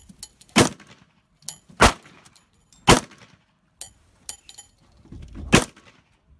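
Semi-automatic pistol fired four times at an irregular pace, about a second or two apart, each shot a sharp loud crack. Fainter, thinner cracks with a high ring fall between the shots.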